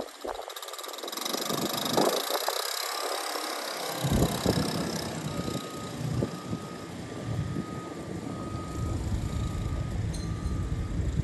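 Heavy equipment at a night unloading, its engine running with a low rumble that fills in about four seconds in. Soon after, a steady beep starts and repeats about once a second.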